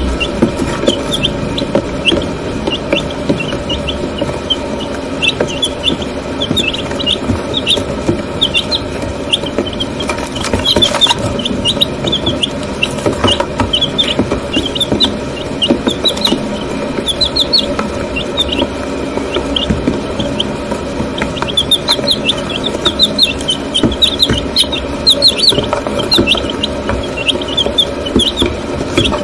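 White Leghorn chicks, about a week old, peeping constantly: a dense run of short, high chirps from several chicks at once.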